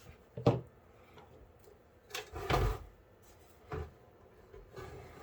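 A few knocks and clunks of hardware being handled inside a PC case as the power supply is worked loose, the loudest a heavier thud about halfway through.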